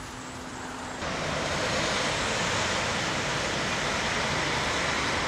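City street traffic: cars driving past on a busy avenue, a steady hiss of tyres and engines that steps up louder about a second in.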